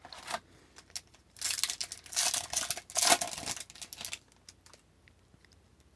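The shiny plastic wrapper of an Upper Deck hockey card pack is torn open and crinkled, in three short bursts of rustling between about one and four seconds in.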